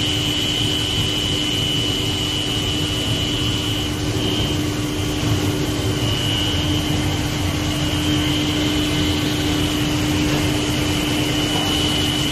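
Plastic-film compactor and pelletizing line running steadily: loud, constant machine noise with a steady low hum and a high whine.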